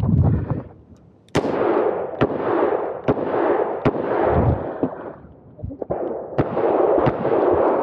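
A Smith & Wesson 625 revolver fired in a string of shots, a little under a second apart. The first shot, about a second and a half in, is the loudest.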